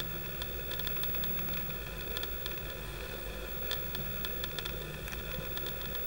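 Steady hiss and hum from the camera, with a faint high whine of several steady tones and many small scattered ticks, typical of the stabiliser in an image-stabilised lens heard through a DSLR's built-in microphone.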